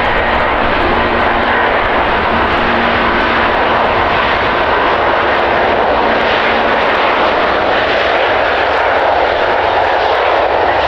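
Jet airliner passing close by, its engines loud and steady throughout.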